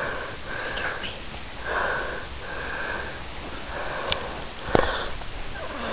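A person sniffing noisily close to the microphone, a short breathy sniff roughly once a second, with two light clicks in the second half.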